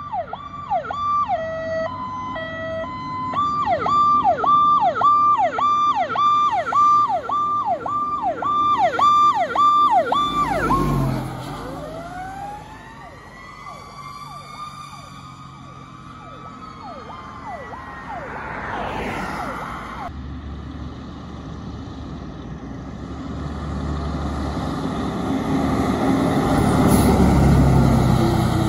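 Fire engine siren: a two-tone hi-lo at first, then a fast yelp for several seconds, switching about ten seconds in to a slow rising-and-falling wail. After that the truck's diesel engine grows louder as it passes, loudest near the end.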